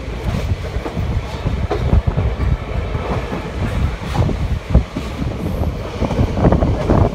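Passenger train coach running on the track as the train accelerates: a steady low rumble of wheels on rail with irregular clacks and knocks, heard from the open coach doorway.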